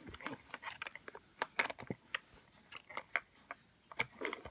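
Light, irregular clicks and taps of Play-Doh playset pieces being handled and set down.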